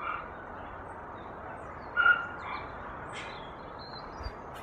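A few short animal calls, the loudest about two seconds in, over a steady background hiss.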